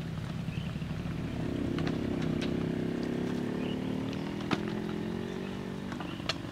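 A small engine running steadily at an even speed, with a few sharp knocks on top, the loudest about four and a half seconds in.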